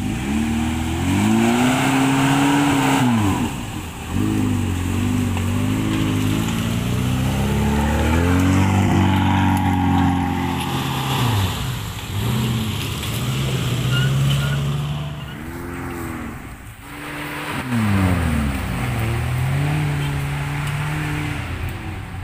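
Suzuki Vitara 4x4 engine revving hard under load in mud, the revs climbing, holding and dropping again several times in surges a few seconds long.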